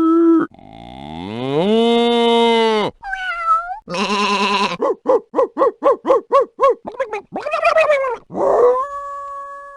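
A string of different animal calls, one clip after another: a long call that rises in pitch then holds for about a second, a couple of short gliding squeals, a harsh call, a rapid run of about a dozen short yelps at roughly five a second, and a long steady cry starting near the end.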